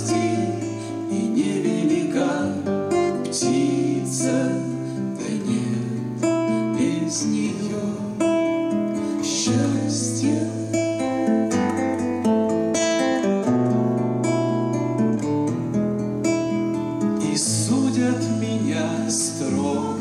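Two acoustic guitars strumming and picking a song accompaniment, with a woman singing at times.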